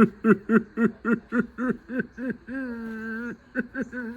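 A man's voice in a quick run of short, pitched "ha"-like syllables, about four a second, breaking into a long held note about two and a half seconds in, then a few more short syllables and another held note near the end.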